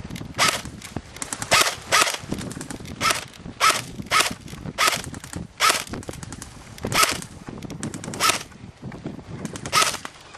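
Airsoft electric rifle firing single shots at an irregular pace, about eleven in ten seconds, each a sharp crack with a short ringing note. Fainter rapid clicking runs between the shots.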